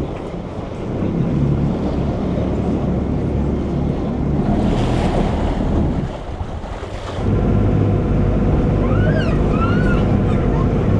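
Small passenger ferry underway: its engine running with water rushing and splashing along the hull and wind buffeting the microphone. About seven seconds in, the engine note grows louder and steadier.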